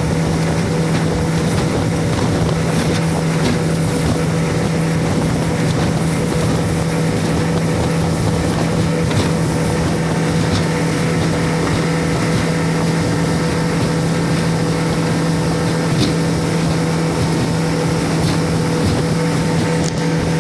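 Boat motor running at a steady speed, a constant hum with no change in pitch, over rushing wind and water noise.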